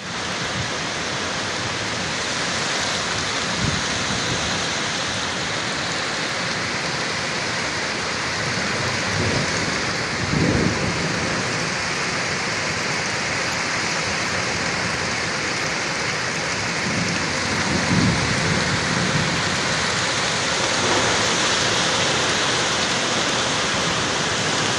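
Heavy rain pouring steadily in a windstorm, a dense unbroken hiss, with a few brief low rumbles about four, ten and eighteen seconds in.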